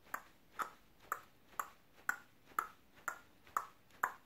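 Clock ticking: a steady tick-tock of short, slightly ringing ticks at about two a second.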